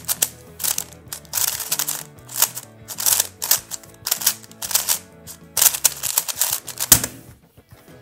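Rapid clicking and clacking of a Meilong 3M V2 UV-coated 3x3 speedcube being turned fast in a speed solve. The turning stops with a single sharp knock about seven seconds in.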